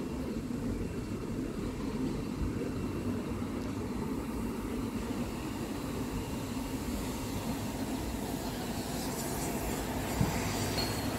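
Steady low rumble of vehicle traffic on a city street, with a hiss building near the end.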